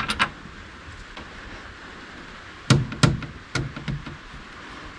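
A few light clicks, then a cluster of about four knocks about halfway through: a battery management system (BMS) box and its cables being handled and set down on a metal battery shelf.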